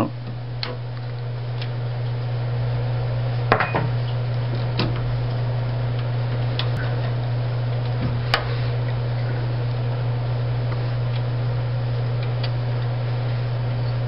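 Scattered light metal clinks and knocks as the small gas supply pipes of a Rheem tankless water heater's burner are worked loose and pulled out of their fittings, over a steady low hum.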